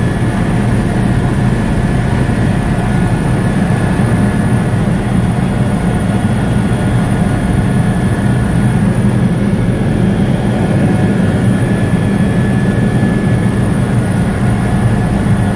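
Helicopter engine and rotor running steadily, heard from inside the cabin: a loud, unchanging low drone with a faint whine above it.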